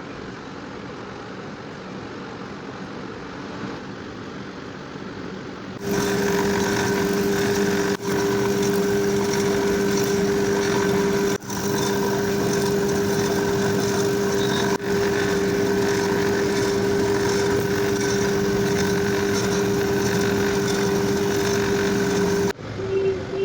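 Ceiling fan motor running with a steady, loud electric hum and a fixed droning tone, starting about six seconds in after a lower steady noise, and briefly dropping out three times.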